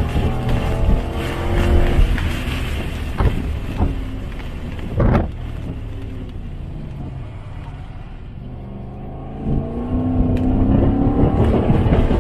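Lexus SC400's 4.0-litre V8, heard inside the cabin at track speed: engine pitch falls and the sound drops off through the middle as it comes off the throttle, then climbs again, louder, under acceleration near the end. A few short thumps come through, the loudest about five seconds in.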